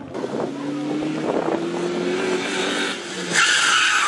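Rally car engine running under load, its note slowly rising in pitch, then a loud rush of tyres sliding on loose gravel for the last second or so.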